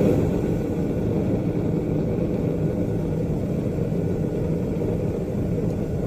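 Propane burner of a KK8 gas-fired melting kiln running at full heat, a steady low rushing sound with no change in pitch or level.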